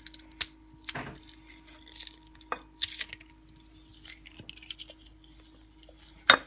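Scattered clinks and knocks of a cooking utensil against a frying pan while onions and garlic are sautéed, the loudest knock near the end, over a faint steady hum.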